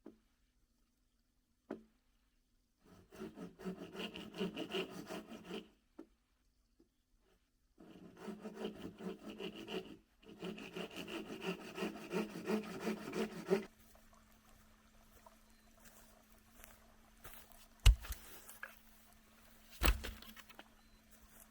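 Hand saw cutting wood, in three bouts of quick back-and-forth strokes with short pauses between them. Near the end come two sharp knocks.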